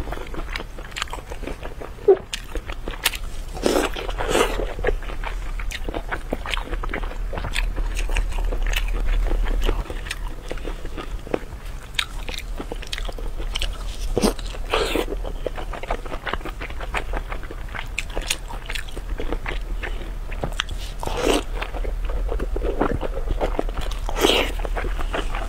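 Close-miked eating sounds: biting into and chewing a crispy, crumb-coated fried piece of food, with sharp crunches and crackles at irregular intervals.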